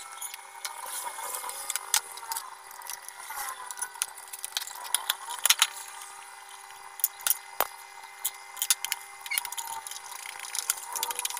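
Scattered clicks and knocks of a food processor's plastic housing and a screwdriver being handled during reassembly, over a faint steady hum.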